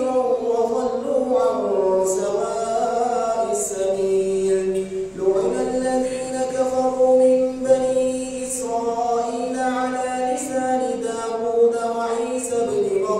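A man's voice reciting the Quran aloud in the melodic, chanted style of tajweed, drawing out long held notes. One phrase ends about five seconds in, and the next begins straight after.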